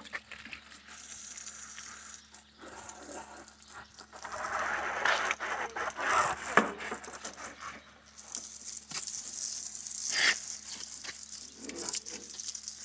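Water splashing and pattering over a muddy motorcycle as it is rinsed, coming in uneven rushes with the heaviest splashing in the middle, a sharp knock about six seconds in and another splash near the end.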